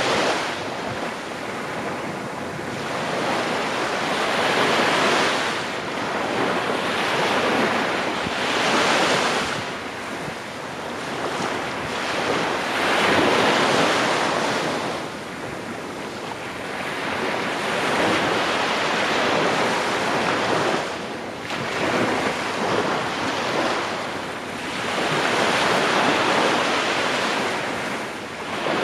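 Small waves breaking and washing up a sandy beach, the surf swelling and falling back every few seconds, with wind buffeting the microphone.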